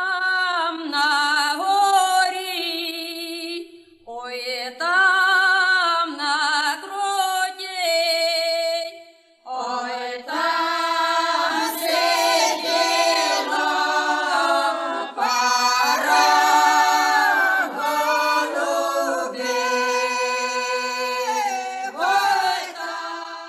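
Unaccompanied a cappella singing, sustained notes with vibrato and no instruments, pausing briefly about four seconds in and again near the ten-second mark.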